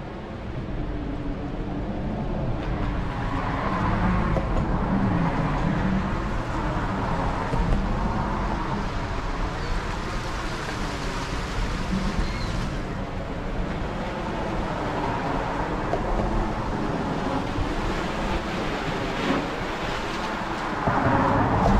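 Steady outdoor noise of wind rumbling on the microphone over the wash of ocean surf and the inlet's moving water.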